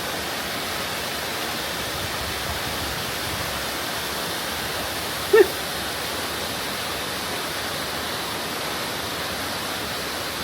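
Waterfall rushing steadily into its pool. About halfway through, a single brief pitched call cuts in over the water.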